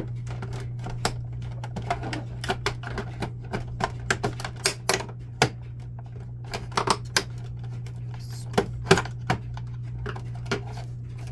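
Irregular plastic clicks and taps, some in quick clusters, as the plastic paper output tray of a Canon Pixma MX870 printer is pried at with a flathead screwdriver and pulled to unclip it. A steady low hum runs underneath.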